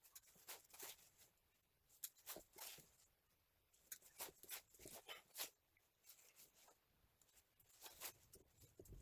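Faint, irregular snipping and scraping as the ends of a rubber-jacketed SJOOW 14/3 power cord are cut and stripped, its outer jacket and the wire insulation being worked off.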